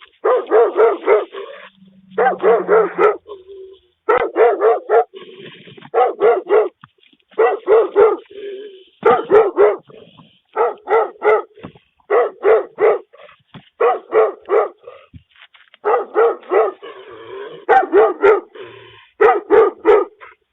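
A dog barking in quick runs of three to five barks with short pauses between, heard through a doorbell camera's microphone.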